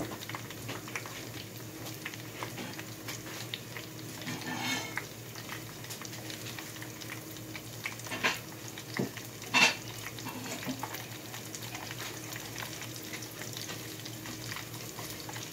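Chicken fingers deep-frying in a pot of oil, a steady sizzle with a few sharp clicks, the loudest about halfway through.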